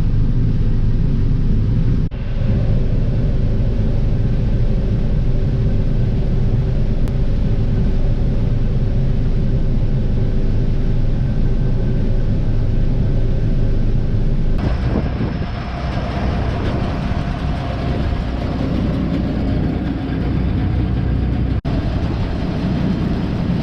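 John Deere 9600 combine running steadily while harvesting corn, a loud, even low rumble with a faint hum above it. The sound shifts abruptly about fifteen seconds in, and there are two very brief dropouts, one near the start and one near the end.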